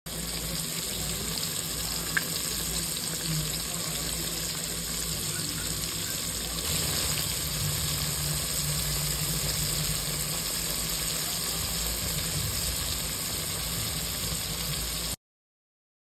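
Pork chops shallow-frying in oil in a Dutch oven, browning with a steady sizzle. There is one sharp tick about two seconds in, the sizzle grows a little louder about halfway, and it cuts off suddenly near the end.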